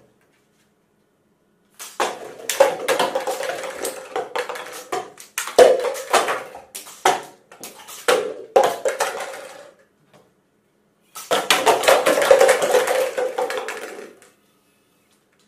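Stacked plastic cups knocked over by shots from a toy revolver: a series of sharp hits, each followed by cups clattering and tumbling on a wooden tabletop. The clatter comes in two spells, from about two to ten seconds in and again from about eleven to fourteen seconds in.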